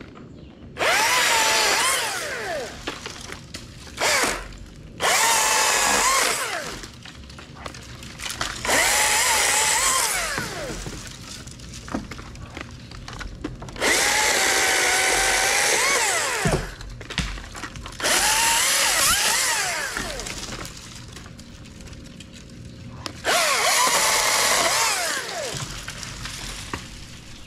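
Small two-stroke top-handle chainsaw revving up in about seven separate bursts as it cuts into dead maple limbs, dropping back to idle between cuts.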